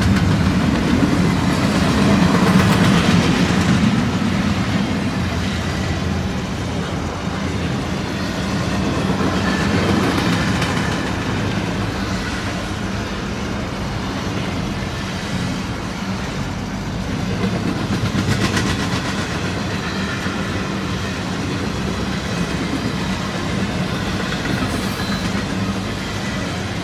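Freight train rolling on the rails: a steady rumble of wheels on track with runs of fine clicks, swelling in loudness every several seconds.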